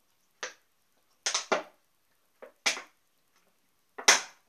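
Drinking from a crumpled plastic water bottle: about seven short noisy sounds, several coming in quick pairs, with silent gaps between them.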